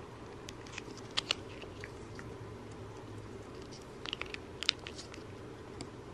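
Cats licking a lickable squeeze-tube treat and smacking their lips: a few short wet clicks about a second in, then a quicker cluster of them around four to five seconds in.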